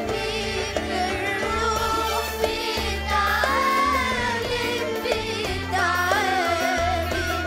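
A boy singing an Arabic song live with violin and keyboard accompaniment over a steady bass line, his melody wavering and gliding with ornaments.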